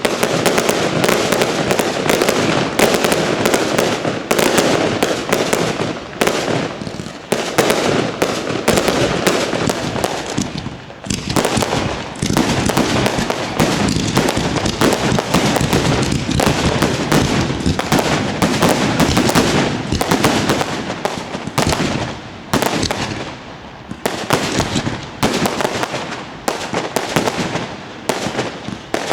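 Fireworks display: a dense, continuous barrage of rapid bangs and crackling, easing briefly twice, about a third of the way and three quarters of the way through.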